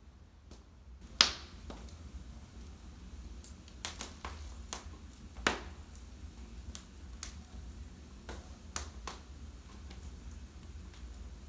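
Wood fire in a fireplace crackling, with irregular sharp pops, the loudest about a second in and again about five and a half seconds in, over a low steady rumble.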